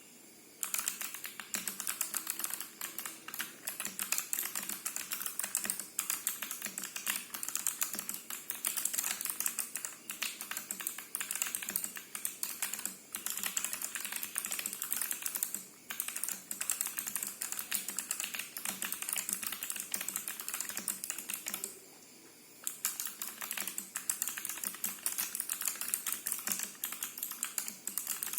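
Typing on a TG4X 40% mechanical keyboard with clicky Kailh Box White switches in an acrylic case: a fast, dense run of sharp key clicks that starts about a second in, broken by a couple of brief pauses.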